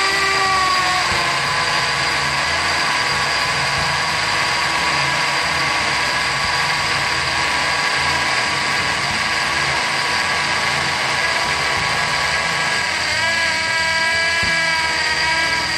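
Porter-Cable PCC621 20V cordless hammer drill boring into a concrete beam with a half-inch masonry bit: the motor runs under steady load with a whine over the grinding of the bit. Its pitch lifts slightly near the end.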